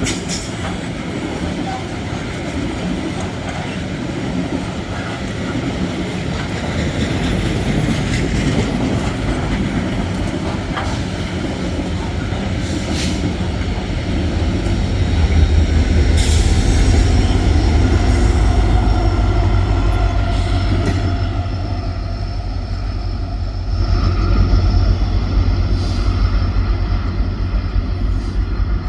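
Metre-gauge freight train passing, its steel wheels rumbling over the rails with occasional sharp clanks. The heavy low rumble grows louder about halfway through.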